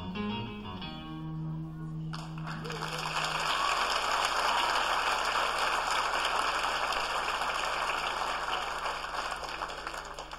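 A live band's song ends on a held guitar chord, and the audience breaks into applause that carries on for several seconds and fades near the end.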